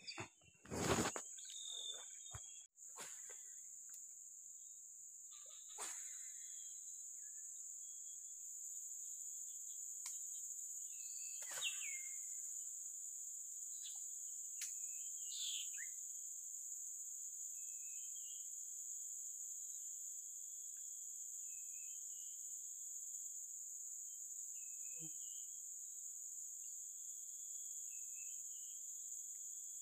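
A steady, high-pitched insect drone from the surrounding vegetation, with short faint chirps recurring every second or two and a few scattered clicks.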